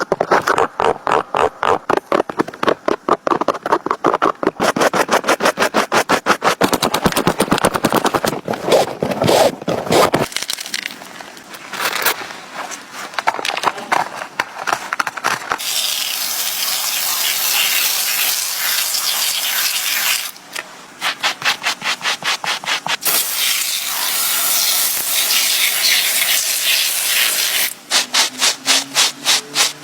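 Rapid back-and-forth scrubbing strokes on a sneaker, several a second, giving way about ten seconds in to a steadier hissing rub that returns to quick strokes near the end.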